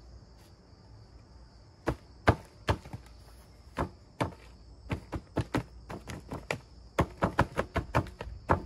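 Hand trowel chopping at hard, caked dried chicken manure in a plastic tray to crush it into small pieces: a few spaced sharp strikes about two seconds in, then quicker, closely repeated strikes from about five seconds on.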